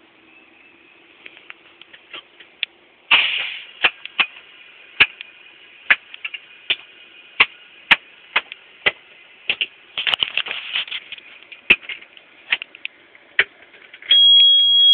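Sharp irregular clicks, about one or two a second, in a big truck's cab with the engine off, with two short rustling bursts. Near the end a dashboard warning buzzer comes on with a loud, steady high tone, the kind a big rig gives when the key is turned on before starting.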